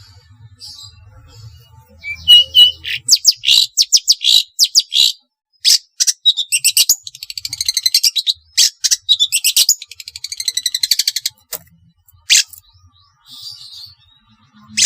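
Long-tailed shrike (cendet) singing: after a quiet start, a fast run of sharp, harsh high notes begins about two seconds in, with rapid rattling trills in the middle, and stops a couple of seconds before the end.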